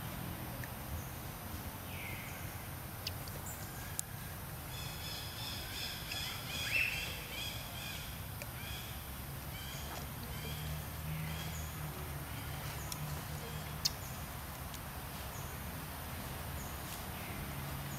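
Outdoor ambience under a steady low background noise, with a run of short, high, repeated chirping animal calls in the middle and single squeaks, plus a couple of sharp clicks.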